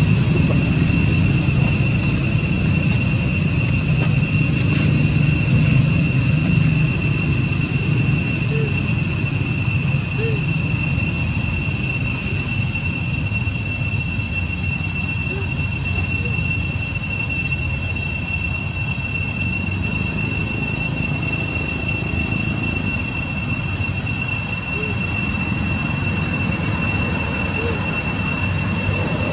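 A steady, high-pitched insect drone over a low rumble.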